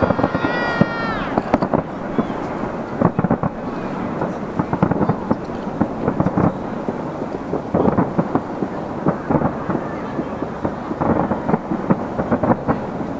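Fireworks going off in a dense, continuous run of overlapping bangs and crackles, with heavier clusters of booms every few seconds.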